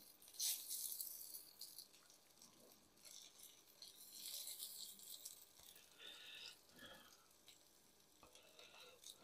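Faint sizzling of steak strips frying in hot oil in a nonstick skillet, coming and going, with the light rattle and click of metal tongs as the strips are laid out and turned.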